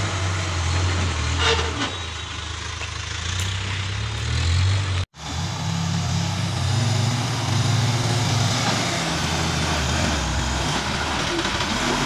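Backhoe loader's diesel engine running while its front bucket works the soil, its pitch shifting up and down with the work. The sound cuts out for an instant about five seconds in.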